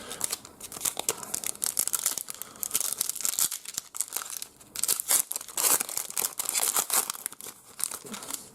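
Trading card pack wrapper being torn open and crinkled in the hands, a dense run of irregular crackles and rustles.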